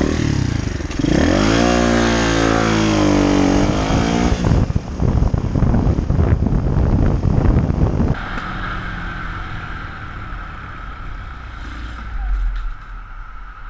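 Pit bike's single-cylinder engine revving up and down as it accelerates along the road, with rough running and wind buffeting on the helmet microphone. About eight seconds in the sound drops abruptly to a quieter, steadier engine under a rush of wind.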